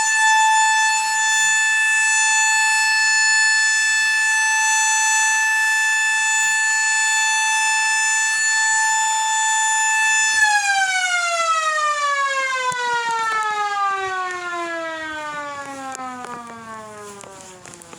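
Outdoor tornado warning siren sounding a steady, loud tone for about ten seconds. It then winds down, its pitch falling steadily as it fades.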